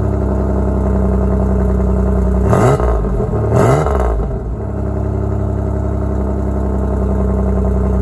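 Pontiac Fiero's 140-horsepower V6 idling after a cold start. It is revved briefly twice, about two and a half and three and a half seconds in, then settles back to a steady idle.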